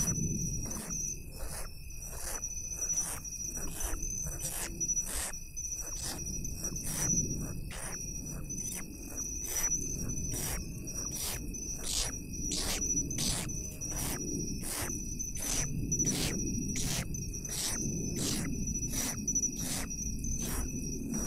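Night insects calling: a steady high-pitched trill with sharp chirps repeating about twice a second, over a low rumble.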